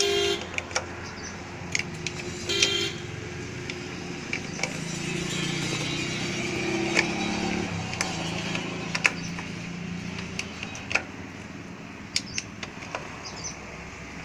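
Scattered metallic clicks of an 8 mm T-handle wrench turning and seating the bolts of a motorcycle's side engine cover as they are tightened down. A vehicle horn toots briefly twice in the first three seconds, and traffic passes in the middle.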